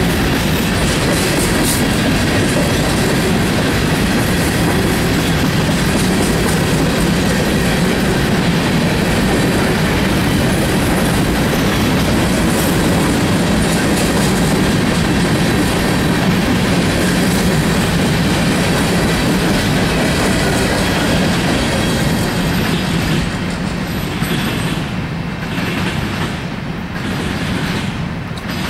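Loaded grain train's covered hopper cars rolling past at speed, a steady rumble with clickety-clack of wheels over rail joints. The sound starts to fade about 22 seconds in as the end of the train goes by.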